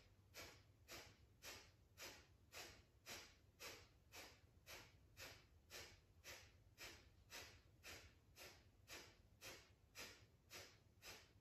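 Breath of fire (kapalabhati): short, sharp, forceful exhales through the nose in an even rhythm of about two a second, each a brief faint puff of breath.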